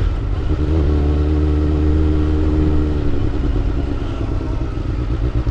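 Suzuki GSX-R600 K4 inline-four engine running at a steady road-riding note, with rushing wind noise over it. The higher engine tones drop away about three seconds in as the throttle eases.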